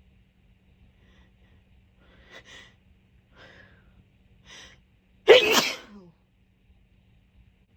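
A person takes three short, faint breaths as a sneeze builds, then sneezes once, loudly and suddenly, a little past five seconds in.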